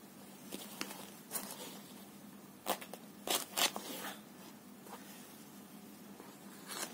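Handling noises of hands, thread and crochet hook on a paper pattern sheet: scattered short rustles and scrapes, the loudest a cluster about three seconds in and another near the end. A faint steady hum lies underneath.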